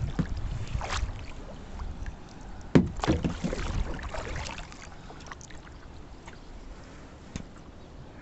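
Kayak paddling: paddle blades dipping and splashing in the water, with a sharp knock about three seconds in, over a low rumble of wind on the microphone.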